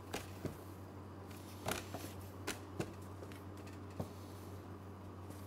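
A handful of light, separate knocks and taps as brioche dough is cut with a knife and set down on an electronic kitchen scale and a stainless steel worktop, over a steady low hum.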